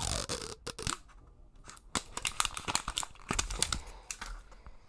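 Toy packaging being torn open and crinkled by hand: a tear at the start, then a run of crackles and small clicks.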